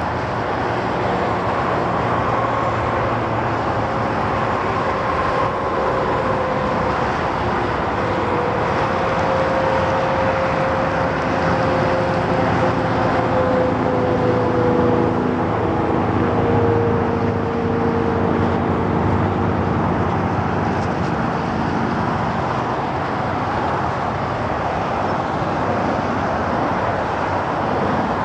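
Steady road traffic noise from a busy highway, with faint droning tones that sink slightly in pitch in the middle.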